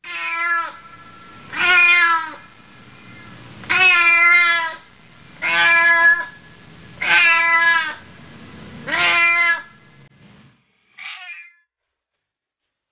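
A cat meowing loudly and repeatedly: six long, drawn-out meows about every second and a half to two seconds, then a shorter, fainter one.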